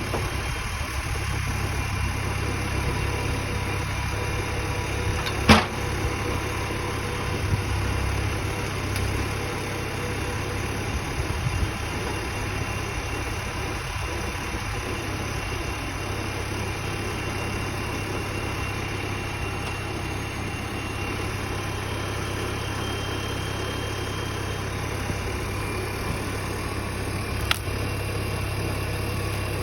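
Engine of heavy sawmill equipment running steadily at a low, even drone while a pine cant is turned. A sharp knock sounds about five and a half seconds in, and a smaller one near the end.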